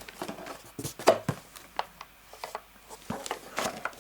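Cardboard packaging and paper inserts being handled and sorted through: scattered rustles, taps and knocks, the loudest a knock about a second in.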